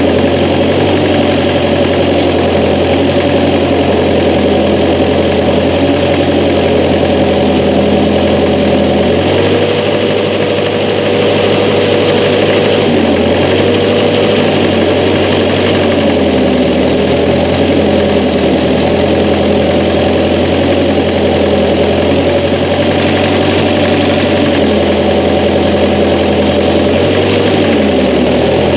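Massey Ferguson 202 tractor-backhoe's Continental Z134 four-cylinder engine running steadily. Its pitch drops and recovers several times, the engine briefly lugging down under load while the backhoe digs.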